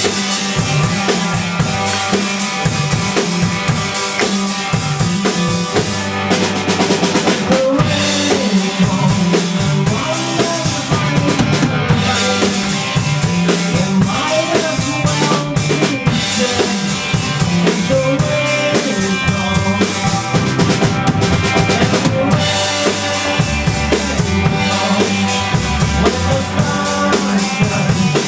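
A band playing a song: a drum kit with bass drum and snare keeps a steady beat under a moving bass line and other pitched instruments.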